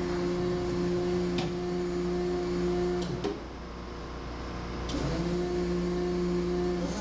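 Electric motor of a battery-powered Zamboni ice resurfacer humming steadily. It cuts out about three seconds in and comes back on about two seconds later, rising briefly in pitch as it spins up. A few sharp clicks fall around the stop and the restart.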